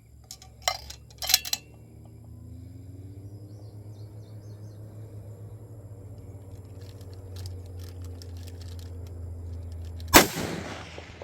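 A single rifle shot about ten seconds in, sharp and loud with a trailing echo, over a steady low rumble. A few sharp clicks sound in the first second and a half.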